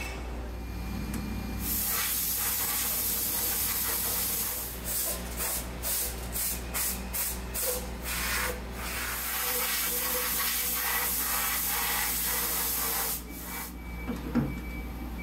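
Compressed-air blow gun blasting chips off the fixtures inside a CNC mill. A steady hiss of air breaks into a run of short bursts, about two a second, then blows steadily again and cuts off. A single knock comes near the end.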